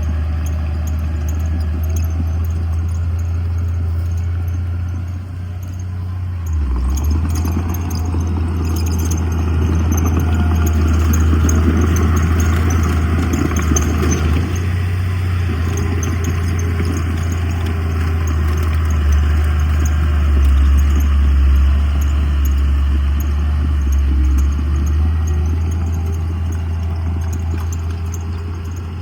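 Bulldozer's diesel engine running steadily, with a clattering, scraping layer over it, growing louder for several seconds around the middle.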